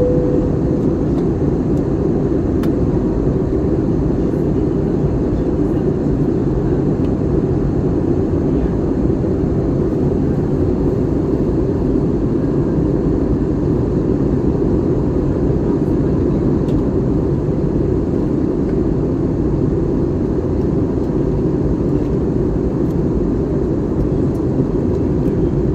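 Steady cabin noise of an Airbus A321neo airliner in flight: engine and airflow noise, mostly low in pitch and unchanging. A short tone sounds right at the start.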